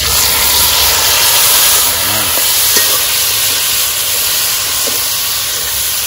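Boiled ackee tipped into a hot pot of fried pigeon and seasoning, setting off a loud, steady sizzle and hiss of steam that starts suddenly.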